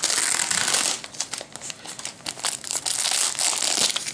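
Packing material crinkling and rustling as it is pulled apart by hand, in loud spells at the start and again in the second half.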